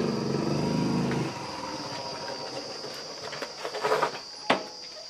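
Motorcycle engine running with a steady low note, dying away a little over a second in. A few short knocks and a sharp click follow near the end.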